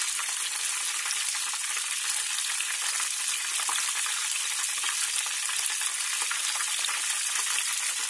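Battered oysters deep-frying in oil heated to about 375°F: a steady sizzle with constant fine crackling.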